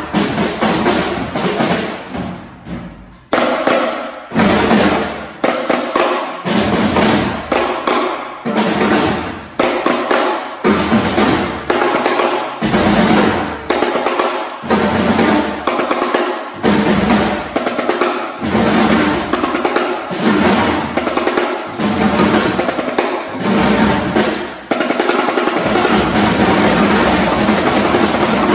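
A group of children playing drums together in a repeating rhythm, with a short lull about three seconds in, then breaking into a sustained drum roll for the last few seconds.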